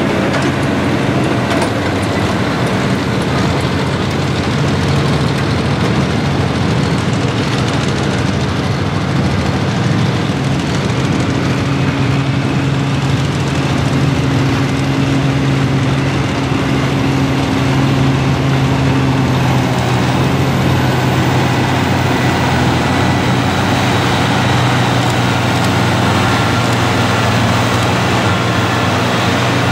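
International Harvester farm tractor's engine running hard under full load as it drags a weight-transfer pulling sled, holding a steady, even pitch throughout.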